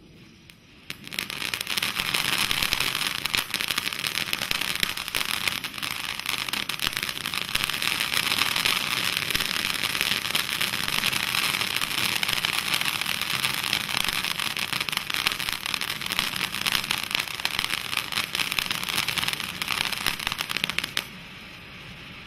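Kimbolton Fireworks Glittering Gemstones fountain firework burning: a steady, loud spray of hissing and crackling that starts about a second in and cuts off suddenly near the end as the fountain burns out.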